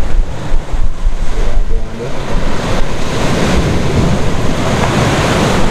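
Sea surf washing over shoreline rocks, with wind buffeting the microphone; about two seconds in, the wash swells and stays loud.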